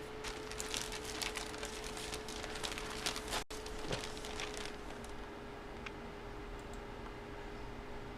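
Trading cards and their plastic wrappers or sleeves being handled by hand: a quick run of small clicks and crinkles for about five seconds, then only a few faint ticks.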